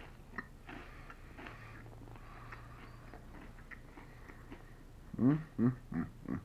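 Chewing a bite of French bread pizza with a hard, crusty crust, mouth closed, giving faint crunching and clicking. About five seconds in come four short hummed 'mm' sounds, the loudest part.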